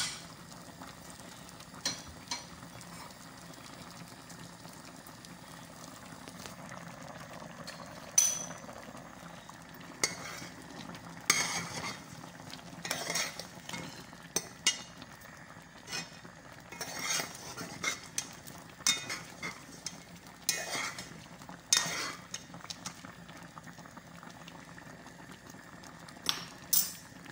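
A spoon stirring a pot of simmering soup, scraping and knocking irregularly against the metal pot, over a steady bubbling, with most of the knocks in the middle stretch.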